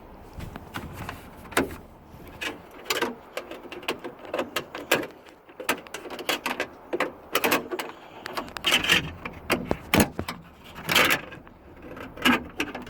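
A bent wire hook scraping and clicking against a truck door's glass, rail and inside trim in irregular taps and short scrapes, as it is fished down to catch the inside door handle.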